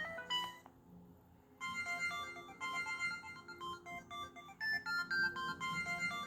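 Preloaded ringtone on an LG 430 phone playing through its speaker. A few short electronic notes sound at the start, then a brief pause. About a second and a half in, a quick melody of short beeping notes begins.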